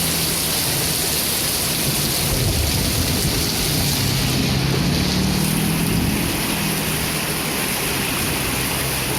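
Steady heavy rain falling, a dense, even hiss. A low hum rises under it midway through and fades.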